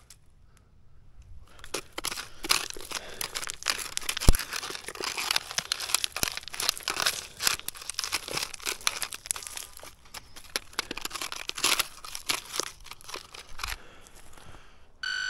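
Digging and scraping through dry, crumbly earth: a dense run of crunching and crackling, with one sharp knock about four seconds in.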